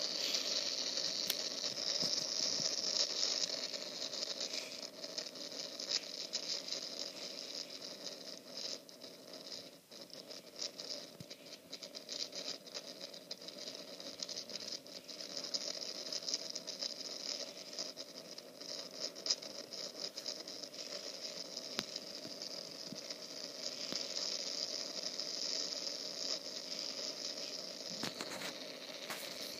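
Rain pattering, many scattered drops ticking over a steady hiss.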